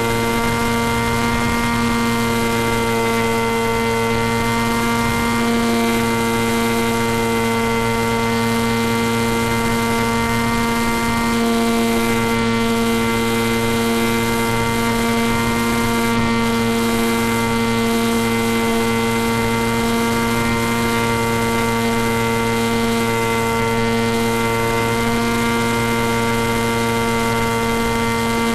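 RC plane's electric motor and propeller running at a steady throttle: one constant whine with many overtones, over a hiss of rushing air.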